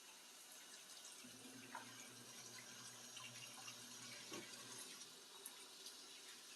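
Faint running tap water in a kitchen sink with small clinks of dishes being washed. A low steady hum comes in about a second in and stops about five seconds in.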